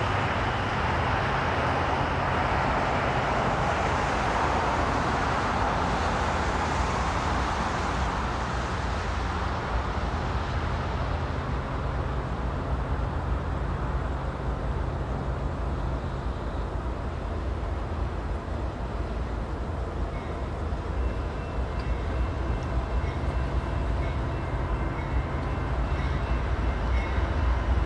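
Union Pacific diesel-electric locomotives leading a freight train, approaching from a distance: a steady low engine drone under outdoor noise, growing slightly louder near the end.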